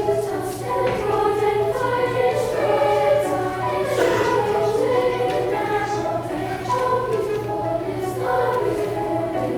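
A children's choir of sixth-grade voices singing, holding and moving between sustained notes.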